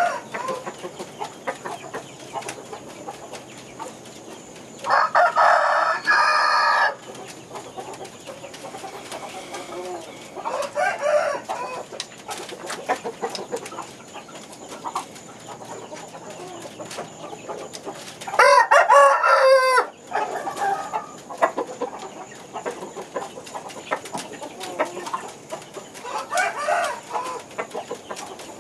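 Rooster crowing twice, a long loud crow about five seconds in and another about two-thirds of the way through, with shorter clucks and calls between. Under them runs a light, steady clicking rattle from the turning chicken-wire exercise wheel.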